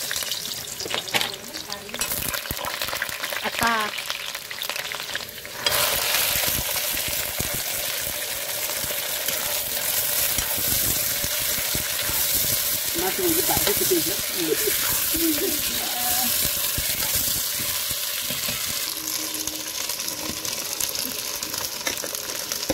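Vegetables sizzling and frying in hot oil in a wok, stirred with a wooden spatula; the sizzle gets louder about six seconds in.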